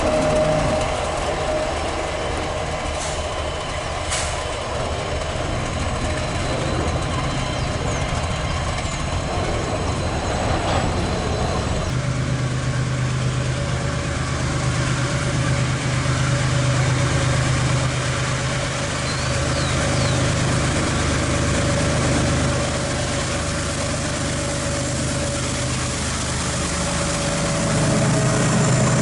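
Diesel freight locomotive engine running steadily with a low hum; its tone changes abruptly about twelve seconds in and grows louder near the end.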